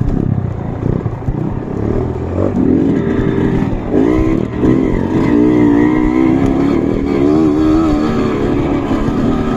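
Trail motorcycle engines revving, the pitch rising and falling unevenly over a steady low rumble.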